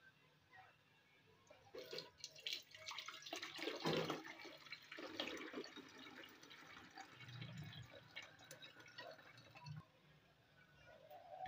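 Boiled mint sharbat being poured through a steel mesh strainer into a blender jar: the liquid trickles and drips through the mesh, with a few light clicks. It starts about two seconds in and is loudest around four seconds.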